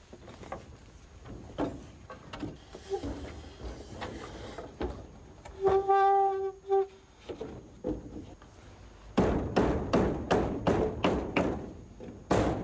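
Wooden roof truss being slid along and worked into place: scattered knocks and thumps, a brief pitched squeal about six seconds in, then a quick run of sharp knocks, about three a second, near the end.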